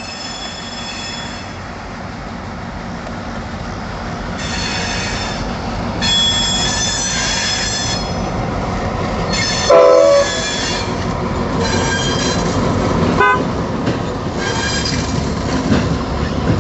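Train rolling by with a continuous rumble and repeated high-pitched wheel squeal coming and going. A short horn blast sounds about ten seconds in, the loudest moment.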